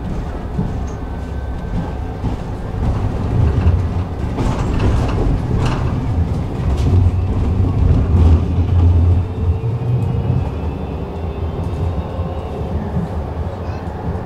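Tram running along the track, heard from on board: a steady low rumble of wheels on rail that swells in the middle, with a few sharp clicks and knocks as the wheels cross rail joints.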